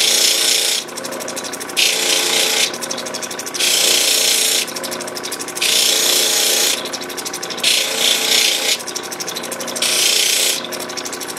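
An opal being ground on the spinning wheel of a lapidary cabbing machine, with a steady motor hum underneath. The stone is pressed to the wheel in passes about a second long, roughly every two seconds, each giving a loud hiss, with a quieter fine ticking between passes.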